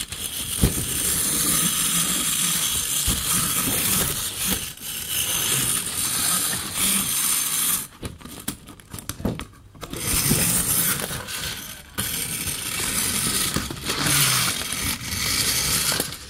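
Clockwork motor of a 1938 Biller Auto Union tin toy race car whirring as its wound spring runs down, with a metallic rattle. The whirr breaks off briefly about eight seconds in and again near twelve seconds.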